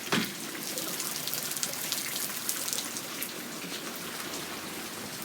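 Heavy rain falling steadily, with many individual drops ticking on surfaces. A short knock comes right at the start.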